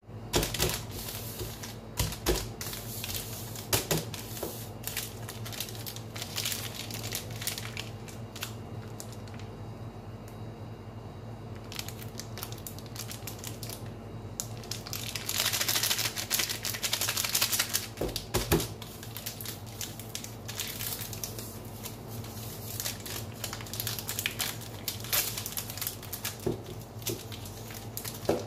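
Plastic chocolate-bar wrapper crinkling and crackling as it is handled and opened, busiest about halfway through, with a few knocks as the bar touches a stainless steel pan. A steady low hum runs underneath.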